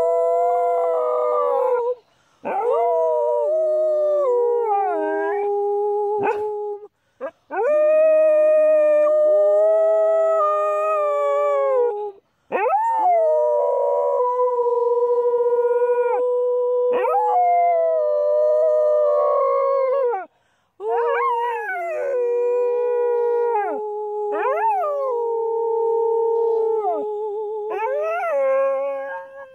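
Dog howling: long drawn-out howls, about five of them broken by short pauses, each wavering in pitch and sliding down at its end.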